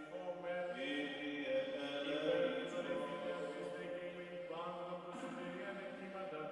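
Byzantine chant from the Orthodox wedding service: a cantor singing long, held melodic lines over a steady low drone note.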